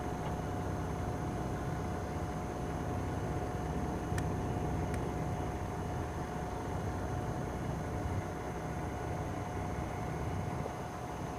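Steady engine and road noise from a service truck driving on a mine haul road, heard inside the cab, with a constant thin whine over the low engine hum.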